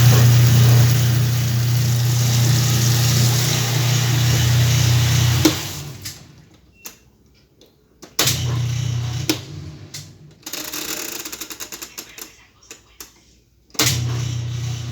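Whirlpool washing machine's motor running with a low hum, cutting out after about five seconds, starting again about three seconds later, then stopping and starting once more near the end, with lighter rattling in between.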